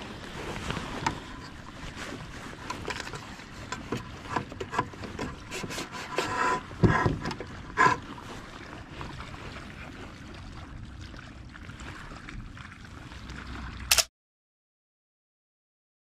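A fish being handled aboard a plastic fishing kayak: scattered knocks, clicks and scrapes on the hull and deck, the loudest two knocks about seven and eight seconds in. The sound cuts off to complete silence about two seconds before the end.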